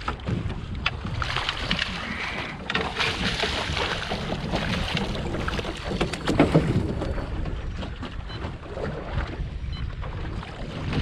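Wind rumbling on the microphone over water splashing and lapping beside a small boat as a hooked fluke is brought to the net, with scattered knocks of the net and gear against the hull.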